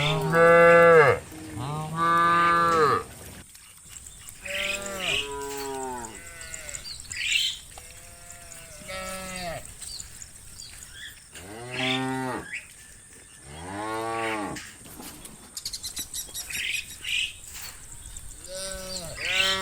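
Several cattle mooing in turn: about ten calls of a second or so each, some low and some higher-pitched. The first two calls are the loudest.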